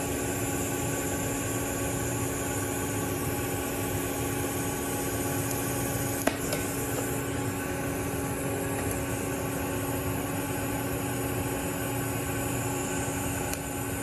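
Steady hum of a running TIG welding setup, with a sharp click about six seconds in. In the second half a TIG arc is struck to tack a 1-inch stainless steel socket-weld joint.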